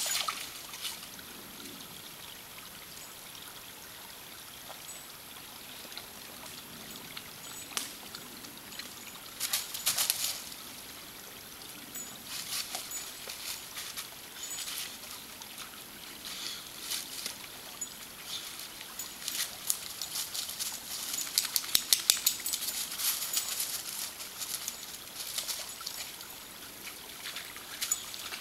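Small woodland creek trickling, a steady soft hiss of running water with scattered crisp splashy clicks that come in clusters, busiest about a third of the way in and again past the middle.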